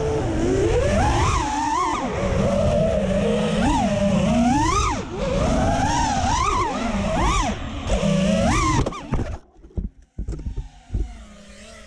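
FPV quadcopter's brushless motors (T-Motor Black Bird V2 1950kv on 6S) whining under changing throttle, the pitch swooping up and down again and again. About nine seconds in, the motor sound drops away to faint, scattered noises.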